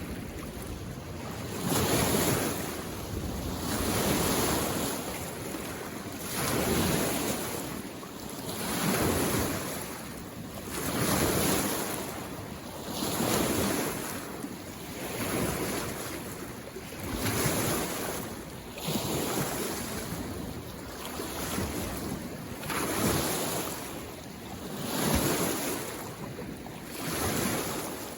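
Small waves on a mountain lake lapping against the shore, each wash swelling and fading in a steady rhythm about every two seconds.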